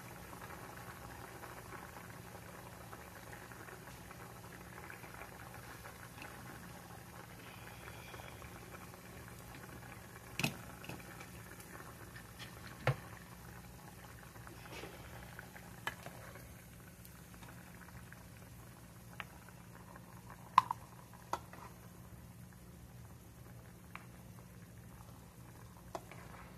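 A saucepan of green beans and Little Smokies bubbling on an electric stove just switched off, the boil slowly dying down. Scattered sharp clicks and pops sound over it, the loudest about two-thirds of the way through.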